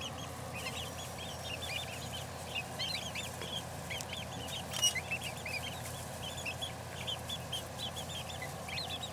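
A flock of young Silver Grey Dorking chicks peeping continuously, many short high chirps overlapping one another, with a single sharp click about five seconds in.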